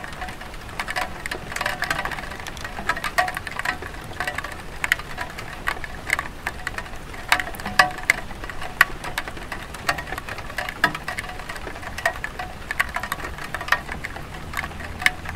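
Light rain on a clay tile roof: an uneven patter of drops striking the tiles, with many sharp taps among a steady hiss.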